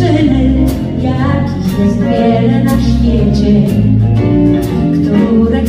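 Live pop band playing a song with singing: keyboards, electric guitars, bass and drum kit, with steady bass notes and regular cymbal hits.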